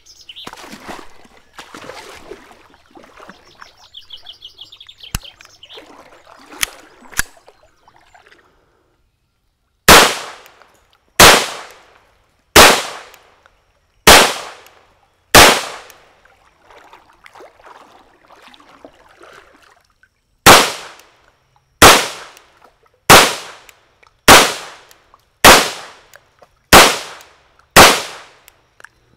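Walther-made Colt Government Model 1911A1 .22 Long Rifle pistol firing twelve shots, each a sharp crack that dies away quickly: five about a second and a half apart, then after a pause of about five seconds, seven more at a slightly quicker pace. Before the first shot, faint bird chirps.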